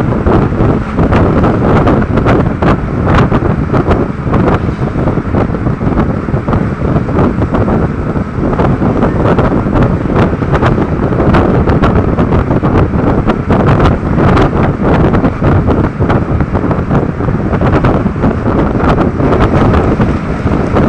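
Loud, steady wind buffeting on the microphone of a phone held at the window of a moving road vehicle, fluttering unevenly, with the vehicle's running noise underneath.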